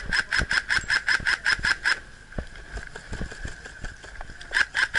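Airsoft M4 rifle firing a rapid string of shots, about seven a second, that stops about two seconds in; after a pause a second string begins near the end.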